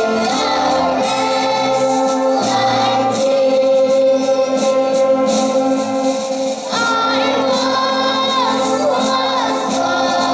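Choir singing a song with instrumental accompaniment.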